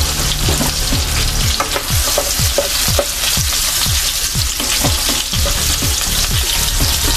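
Beef liver slices sizzling steadily in hot bacon fat and butter in a frying pan, with a run of short low pops about three times a second.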